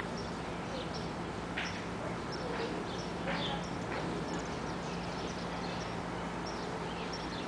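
Birds chirping, with short high calls scattered through, over a steady background hiss and faint low hum.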